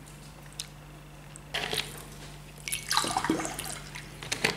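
Water poured from a plastic bottle into a glass in the second half, with a few sharp clicks from the bottle and glass.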